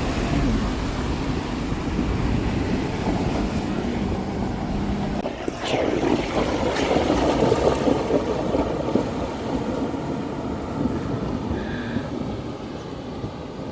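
Toyota LandCruiser 300 Series driving through a river crossing: water rushing and splashing around the wheels, mixed with road and engine noise. The splashing swells about five or six seconds in and eases toward the end.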